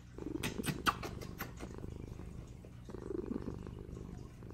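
Kitten purring steadily, a low pulsing rumble that swells with each breath, twice. Several quick kissing smacks in the first second and a half.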